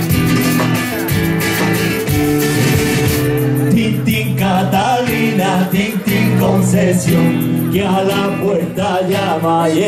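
Live band music: a nylon-string Spanish guitar strumming chords over a small drum kit. A man's singing voice comes in about three and a half seconds in, on a Spanish Christmas villancico.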